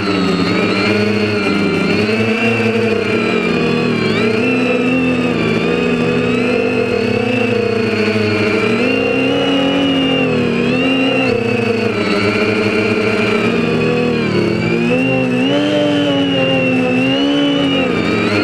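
Quadcopter's four Tiger Motors MT2216-9 1100kv brushless motors driving APC 9x4.7 propellers, a layered whine and buzz that keeps rising and falling in pitch as the throttle changes.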